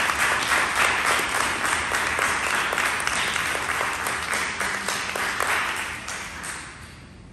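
A group of people applauding with steady, dense hand-clapping, dying away over the last second or so.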